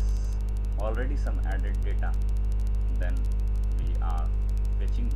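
Steady electrical mains hum, low and buzzing with many overtones, running unbroken. Faint, indistinct voices come through about a second in and again around four seconds in.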